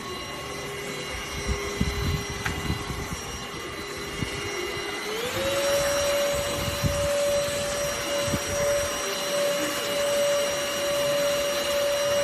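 Cordless handheld vacuum cleaner's motor running with a steady whine that steps up to a higher pitch about five seconds in, as the motor speeds up. Scattered low knocks and bumps sound in the first half.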